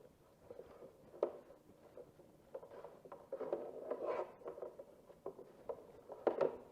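Brake parts being scrubbed clean with a brush: irregular scratchy scrubbing strokes, busiest in the middle and near the end, with a couple of sharp knocks of parts being handled.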